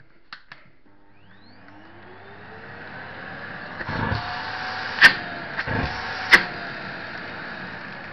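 Vacuum cleaner motor switched on and spinning up, its whine rising in pitch over a few seconds and then running steadily. Two sharp clicks, each just after a knock, come about five and six seconds in.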